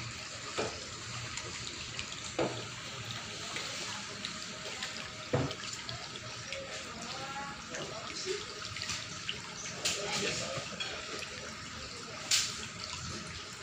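Water running steadily in a small swimming pool, a continuous trickling hiss, with a few brief sharp knocks.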